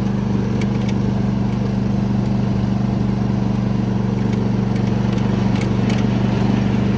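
John Deere D170 lawn tractor engine running steadily under the rider while mowing, its note holding even. Meanwhile the tractor loses ground speed and picks up again, the drive slipping, which the owner blames on a recently fitted cheap drive belt.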